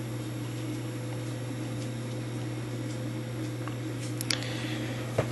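Steady low machine hum, with a few light clicks about four seconds in and near the end as a brass clock wheel is handled.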